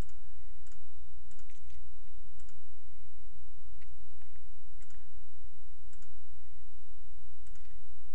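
Computer mouse clicking, a scattered series of single and quick double clicks, over a steady low hum.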